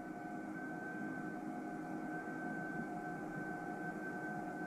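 Steady background hiss and hum with a thin, constant high whine, unchanging throughout; no distinct sound event.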